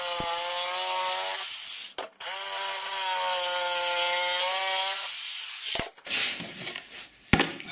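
Jigsaw cutting a rounded corner in chipboard, running in two long runs with a brief stop about two seconds in. It stops about five seconds in, followed by a couple of sharp knocks.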